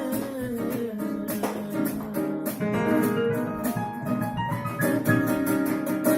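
Live worship music: a guitar strummed through an instrumental passage after the last sung line, the singer's held final note fading out in the first second.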